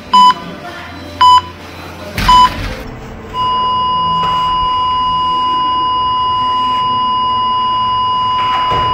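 Hospital heart monitor beeping about once a second, three short beeps, then a single unbroken tone from about three and a half seconds in: the flatline that signals the patient's heart has stopped.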